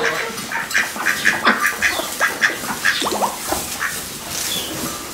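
Chickens clucking in short, quick calls, several a second, thinning toward the end.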